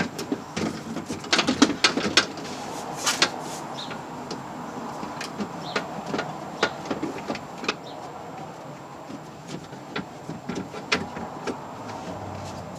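Irregular clicks and knocks of metal and plastic parts being handled and fitted inside a car door shell, the new door latch assembly being worked into place, over a steady background noise. The knocks come thickest in the first few seconds and thin out after.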